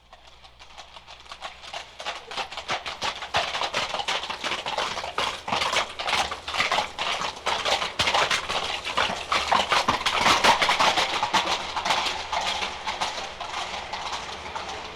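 Horses' hooves trotting on a hard street surface, a quick run of clip-clops that comes in out of silence. The hoofbeats grow louder to a peak about ten seconds in, then ease off.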